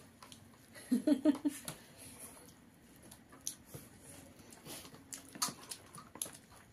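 Close-up eating sounds: fingers mixing rice on plates, chewing and lip smacks, with scattered sharp clicks of utensils and dishes. A short burst of voice, the loudest sound, about a second in.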